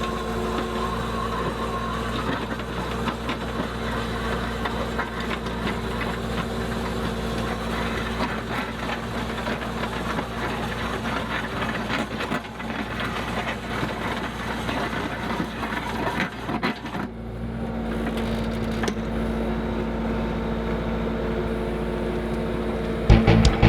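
Skid steer engine running steadily while driving a hydraulic auger drilling a post hole, with rattling and knocking through the middle stretch. Music comes in near the end.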